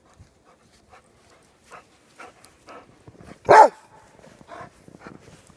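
Giant schnauzer puppies playing rough in snow, panting and scuffling in short quick bursts, with one loud bark about three and a half seconds in.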